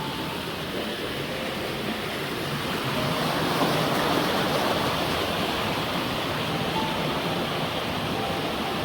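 Rushing river water: a steady roar of water running over rocks, a little louder in the middle.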